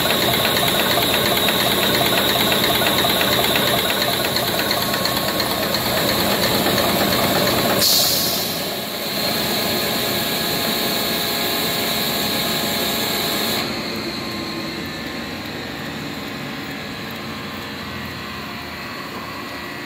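Bertoli HA33037 homogenizer running, a fast mechanical clatter from its high-pressure pump. About eight seconds in there is a short burst of hiss, after which the machine runs quieter, and quieter again a few seconds later.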